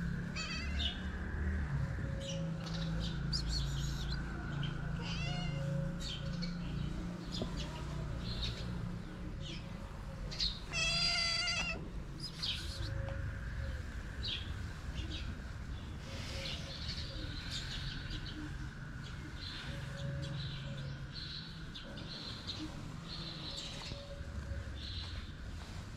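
A cat meowing, with one loud, wavering meow about halfway through and short high chirps around it.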